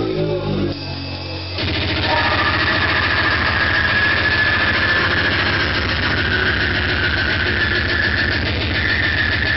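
A grindcore band playing live, heard loud and distorted through a camera microphone. About a second and a half in, a dense wall of noise with a fast pounding beat kicks in and runs on, with a steady high whine over it.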